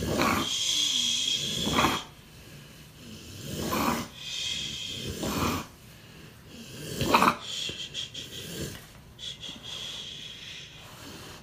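A dog in a seizure breathing in loud, rasping, snore-like breaths, several in a row a second or two apart, growing quieter and choppier over the last few seconds.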